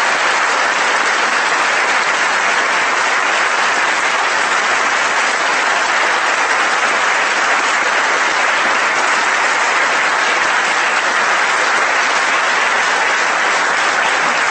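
Audience applauding steadily in a large hall, dense and sustained clapping after prize winners are announced.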